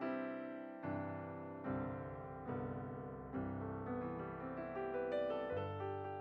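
Soft background piano music, a chord struck about every second and left to ring.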